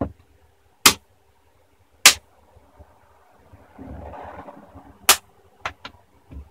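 Plastic clips of a Lenovo S21e laptop's screen bezel snapping into place as it is pressed on along the edges: sharp clicks, three about a second apart, then a softer stretch of handling and rubbing, then three more clicks near the end.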